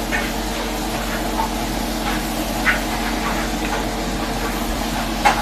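Steady mechanical hum, like a kitchen appliance or fan running, with two brief faint higher sounds, one about halfway through and one near the end.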